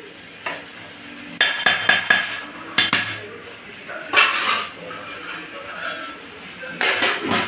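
Metal ladle clinking and scraping against an aluminium pot of cooked rice, in a few short clusters of clatter.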